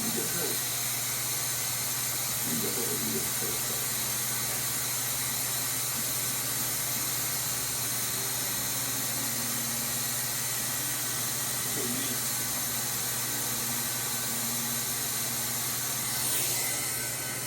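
Hot-air plastic welding gun blowing steadily: a constant hiss of hot air over the low hum of its blower motor.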